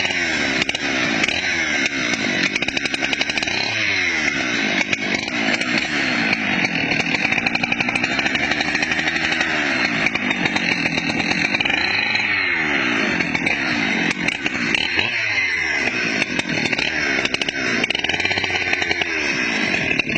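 Chainsaw engine running continuously, its pitch dipping and rising again several times as the throttle is eased and opened.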